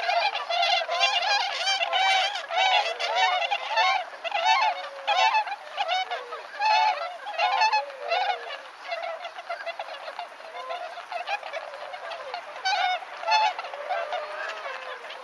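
A flock of whooper swans calling, many overlapping honks. The calls come thick and fast, then thin out to scattered honks after about ten seconds.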